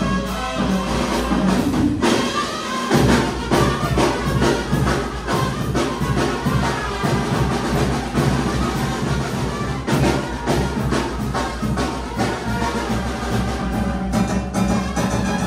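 A brass band playing: brass over drums and cymbal keeping a steady beat.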